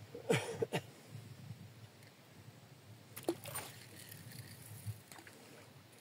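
Short splashes and knocks of water at the side of a small rowboat, from a hooked pike thrashing at the surface as it is played beside the boat. There are two brief bursts: one right at the start and one about three seconds in.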